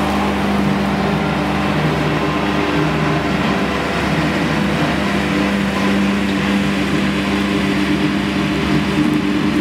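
International tractor engine running steadily under load, driving a Krone EasyCut trailed mower-conditioner through standing hay, with a steady mechanical hum from the machine. The engine tone dips briefly a few seconds in.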